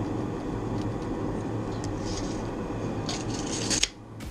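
Pencil scratching marks onto a wooden workpiece in short rasping strokes, once about two seconds in and again for most of a second near the end. Under it runs the steady drone of workshop machinery.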